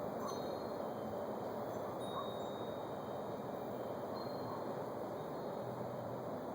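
Steady outdoor background hiss with a few faint, thin, high chime-like notes scattered through it.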